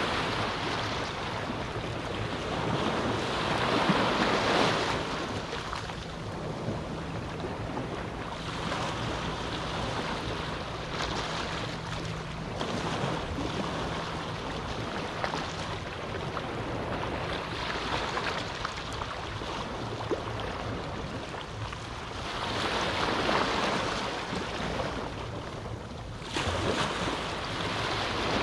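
Small waves of a calm sea breaking and washing up the beach in slow surges. The wash swells up about four seconds in, again around twenty-three seconds, and rises suddenly near the end.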